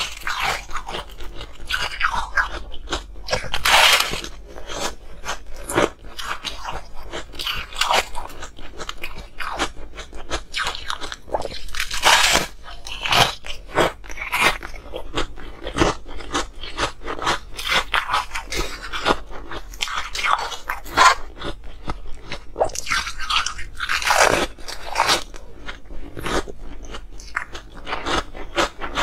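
Close-miked crunching and chewing of crumbly blue-dyed ice bitten off a frozen block: a continuous run of crackly crunches, with several louder bites among them.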